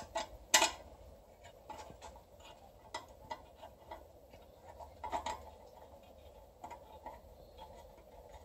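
Scattered light clicks and taps of small metal parts, sharpest about half a second in and again about five seconds in: a bolt and a thin hand tool knocking against the engine block as the bolt is set into its hole.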